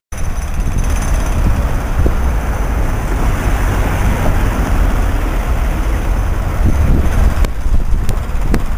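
Street traffic noise with wind rumbling on the microphone, steady throughout.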